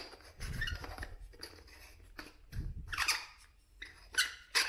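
Timemore C2 hand coffee grinder crushing coffee beans in its steel burrs: a dry, squeaky crunching that comes in uneven bursts as the handle is turned, at a coarser setting for filter coffee.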